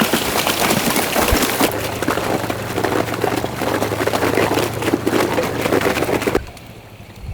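Tracked UTV churning through a frozen flooded field: a dense crackle of breaking ice and splashing water, with a steady engine drone joining about two seconds in. It all cuts off abruptly near the end.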